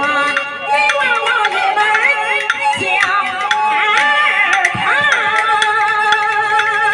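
A woman singing a Chinese opera xiaosheng (young male) role through a handheld microphone, with sustained, gliding notes over steady instrumental accompaniment.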